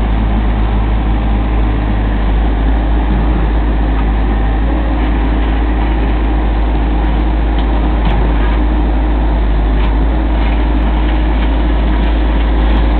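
Carter CT45-7A mini excavator's diesel engine running steadily while its bucket digs and levels soil, with a few faint clicks near the end.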